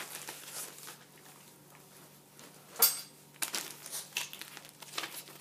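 Paper rustling as a cross-stitch pattern sheet and its packaging are handled, with one sharp, loud crinkle a little under three seconds in and several smaller rustles after it.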